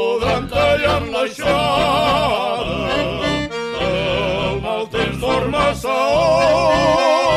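Havanera sung by a vocal group: several voices holding notes in harmony with wide vibrato over accordion and a steady bass accompaniment.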